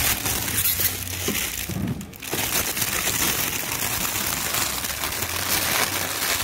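Clear plastic wrapping crinkling and rustling loudly as it is handled over a non-stick fry pan, easing briefly about two seconds in.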